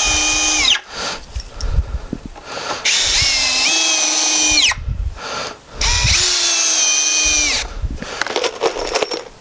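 Ryobi cordless drill driving screws into cedar boards: three spells of steady motor whine, the last two about two seconds each, each stepping up in speed and winding down as the screw seats. Knocks and handling noise fall between them.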